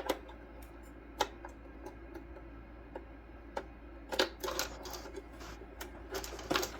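Scattered clicks and light knocks of plastic parts being handled and pried apart during a car headlight teardown, bunching into a quick run of clicks about four seconds in and again near the end.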